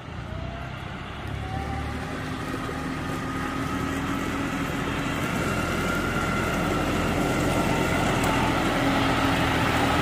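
A John Deere-style utility tractor's diesel engine runs steadily and grows louder as it approaches pulling a litter trailer, with a steady whine over the engine.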